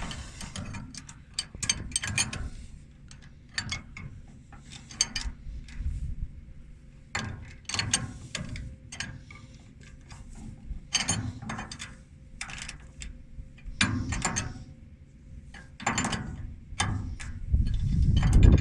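A 7/8 wrench ratcheting as it tightens a hydraulic fitting into the valve block, clicking in short runs with pauses between strokes. A louder low rumble builds near the end.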